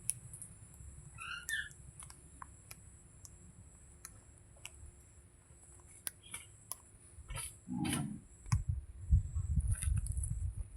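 Green parrot giving a few short, soft chirps among scattered sharp clicks, with a run of low thumps near the end.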